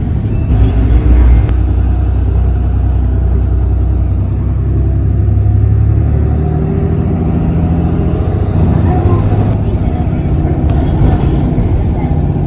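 Bus engine and road noise heard from inside the cabin, a steady low drone.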